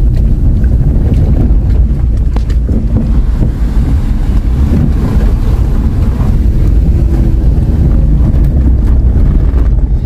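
Steady low rumble of wind buffeting the microphone, mixed with the running noise of a moving vehicle.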